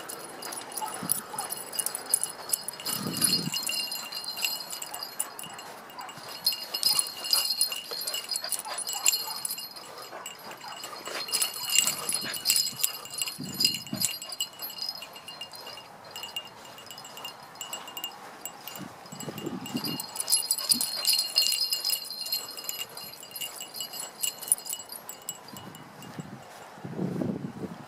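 Light metallic jingling in runs of a few seconds each, with a few short low bumps between them.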